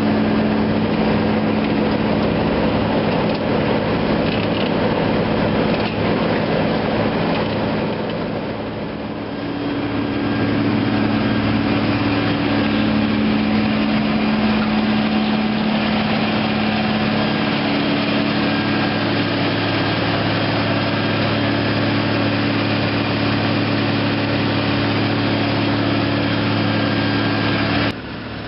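2005 Peterson 4700 horizontal grinder's diesel engine running steadily, with a brief dip in level about nine seconds in.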